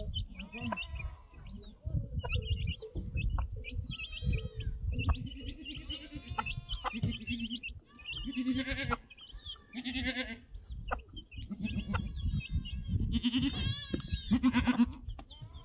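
Young chicks peeping steadily in short high cheeps while goats bleat several times in the second half, one bleat with a wavering quiver.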